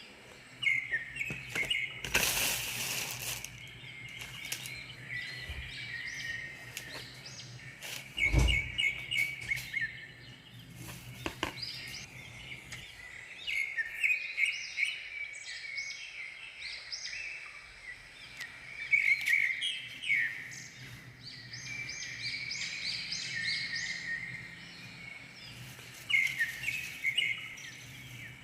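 Small birds chirping in repeated quick bursts of high notes. A short noisy rush comes about two seconds in, and a dull thump around eight seconds.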